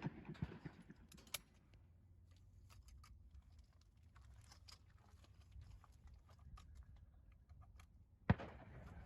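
Mostly quiet after shotgun fire, with scattered faint clicks and rattles of small gear being handled. One sharp crack comes near the end, followed by louder background noise.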